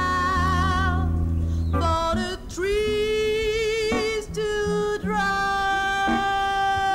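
Music: a singing voice holding long notes with vibrato over instrumental backing, with a low bass line that drops out about two seconds in.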